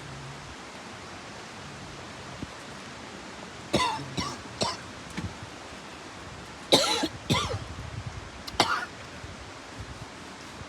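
A man coughing and clearing his throat in short fits: three quick coughs about four seconds in, two more around seven seconds, and one a little later, with something caught in his throat.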